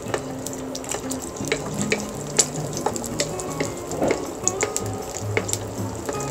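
Egg frying in hot oil in a nonstick pan: a steady sizzle with irregular crackling pops, a thicker burst of crackle about four seconds in. Background music with low notes plays underneath.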